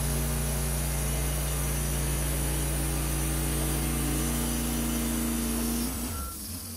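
EZ Boardwalk 40 portable bandsaw mill's engine running hard as its band blade cuts lengthwise through a hemlock log, a loud steady drone. About six seconds in the sound drops off as the cut ends.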